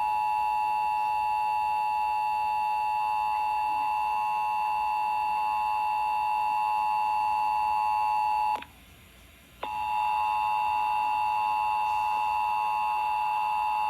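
Emergency Alert System two-tone attention signal, 853 and 960 Hz sounded together, holding steady for about eight and a half seconds. It breaks off, and after about a second of quiet the same two-tone signal starts again.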